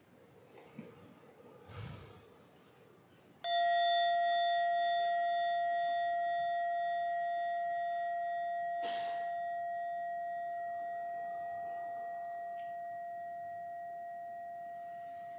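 A meditation bell is struck once about three and a half seconds in. It rings on with a clear, steady tone that fades slowly, marking the start of a meditation session.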